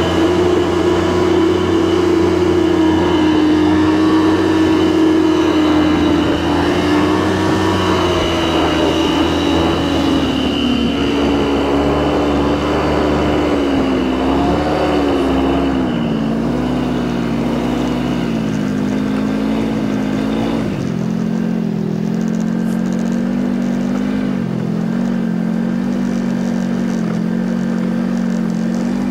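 Snowmobile engine running steadily under way. Its pitch eases lower about a third of the way through, then rises and dips a little.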